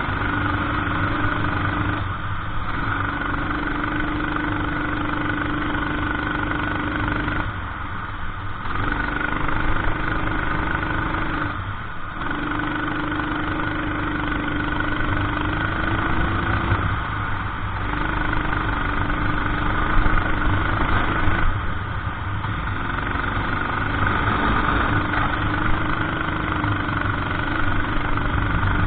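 Kart engine running hard at a steady high pitch, cut back briefly about five times where the throttle is lifted for corners, then picking up again.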